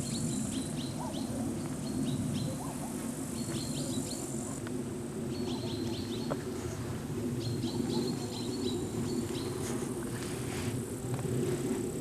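Outdoor ambience: insects chirping in short, repeated clusters of high chirps, with a steady high hiss at times and a continuous low rumble underneath.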